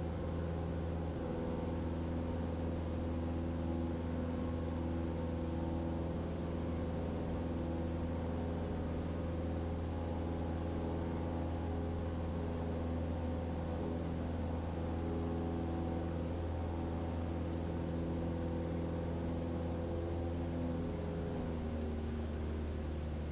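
Cessna 172 Skyhawk's piston engine and propeller droning steadily in climb, heard inside the cockpit through the headset intercom, with a thin high whine riding on it. About 21 seconds in the engine note and the whine both step down slightly in pitch as power is eased back.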